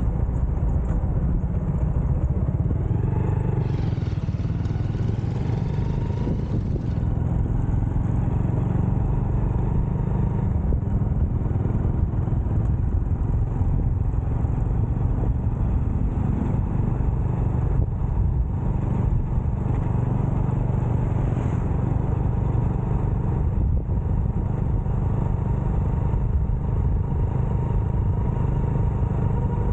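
Motorcycle riding along, its engine and road noise a steady low rumble.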